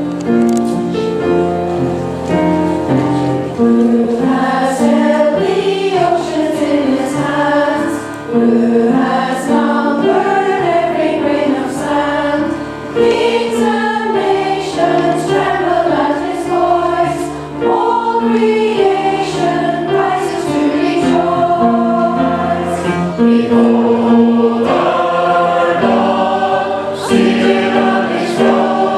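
A choir singing a hymn over instrumental accompaniment that holds steady chords underneath.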